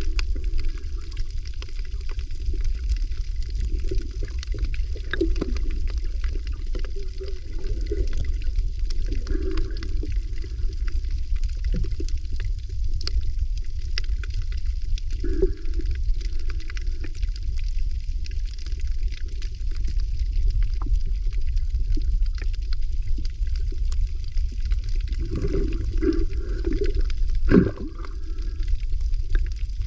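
Water moving and gurgling over a steady low rumble, with scattered faint clicks and a cluster of louder gurgles near the end.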